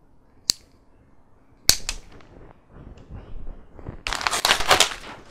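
Blunt segments of a snap-off craft-knife blade being snapped off to expose a fresh edge: one sharp snap about half a second in and a louder crack near two seconds in. From about four seconds a paper mailing envelope is torn open and crinkles.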